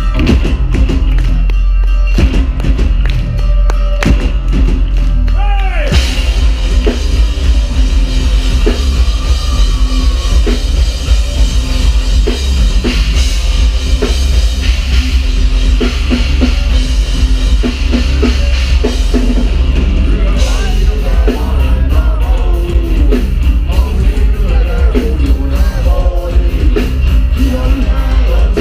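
Rock band playing loudly on stage: drum kit, electric guitar and singing in a heavy-metal style.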